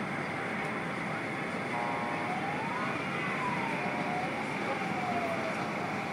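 Steady city traffic noise with an emergency-vehicle siren wailing through it: the wail rises to a peak about three seconds in, then falls away slowly over the next few seconds.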